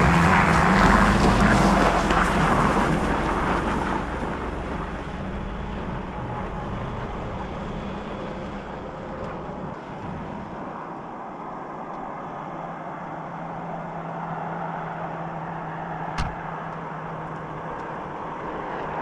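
Chevrolet Astro van running as it is driven: loudest in the first few seconds, then settling to a steady hum. A short click about sixteen seconds in.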